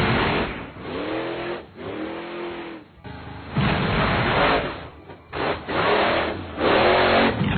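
Monster truck engine sound effect revving up and down in pitch about five times in a row, with short breaks between revs and the longest pause about three seconds in.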